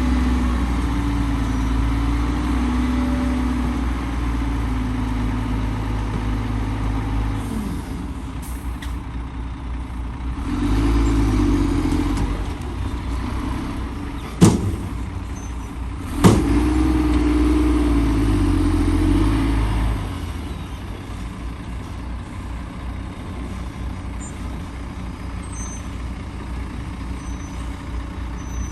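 Heavy diesel construction machinery working, its engine rising and falling in several surges. There are two sharp bangs in the middle, less than two seconds apart, and the engine quietens over the last third.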